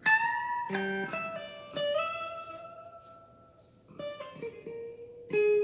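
Solo guitar playing sparse plucked single notes and short figures, each left to ring out and fade, a few of them bent slightly in pitch.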